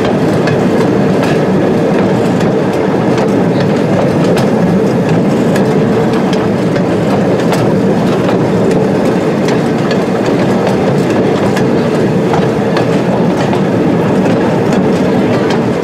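Small excursion train rolling slowly on the rails, heard from an open car: a steady rumble of wheels with a faint held hum and scattered, irregular clicks and knocks from the track.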